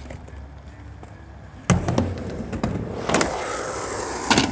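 Skateboard on concrete: a sharp clack as a board hits the ground about two seconds in, then wheels rolling close by with a gritty rumble, more clacks near the end.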